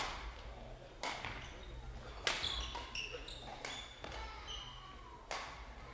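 Sharp badminton racket-on-shuttlecock hits, about seven of them, irregularly spaced and ringing on in the hall, mixed with short high squeaks of court shoes on the sports floor.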